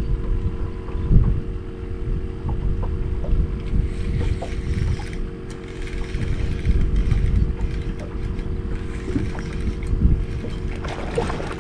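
Wind buffeting the microphone aboard a small boat on open water, a loud, uneven low rumble, with a steady hum running beneath it.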